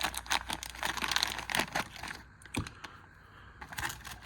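Hands handling small hard items and packaging: a quick run of light clicks and crinkling rustles for about two seconds, thinning to a few scattered clicks.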